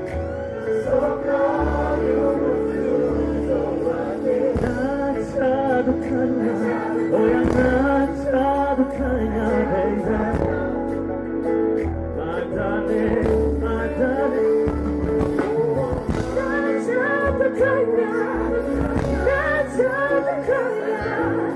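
Live music with singing over a steady bass line and held keyboard or guitar chords, played through a PA.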